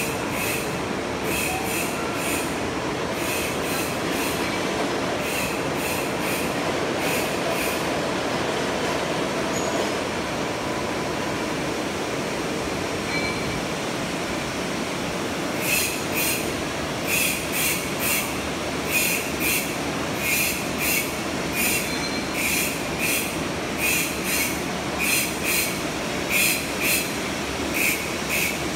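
Machine tools running in a gear-cutting workshop: a steady mechanical noise with short, high-pitched bursts repeating over it, irregularly for the first several seconds, then about twice a second from about halfway through.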